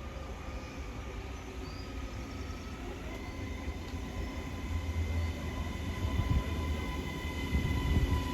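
A train approaching along the railway, its low rumble growing louder, with several steady high-pitched tones coming in a few seconds in.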